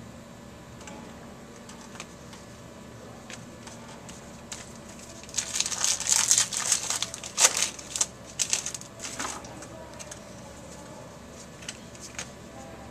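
Baseball card pack wrapper crinkling as it is handled and opened, a few seconds of sharp crackling in the middle with a few clicks, with quieter handling ticks either side.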